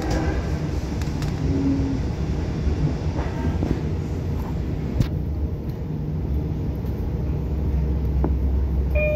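Steady low rumble of a Long Island Rail Road train hauled by a DM30AC locomotive, heard from aboard while riding. There is a sharp click about five seconds in and a short tone right at the end.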